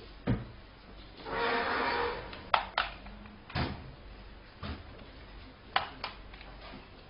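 Scattered handling noises: a knock, a rustling hiss lasting about a second, then several sharp clicks and a couple of dull knocks.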